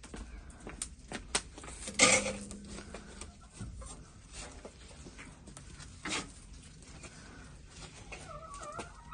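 Metal fire tongs clicking and knocking against a brick oven as burning wood is carried over and pushed into the firebox. A louder clatter comes about two seconds in, and a short animal call near the end.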